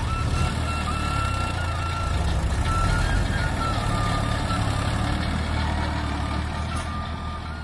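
Farmtrac tractor's diesel engine running steadily under load as it drags a land leveler through loose sand, with a thin, steady high tone over it.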